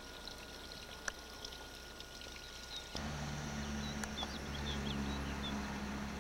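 Faint outdoor ambience. About three seconds in, a louder low steady hum starts abruptly, and a few short, faint, high bird chirps come soon after.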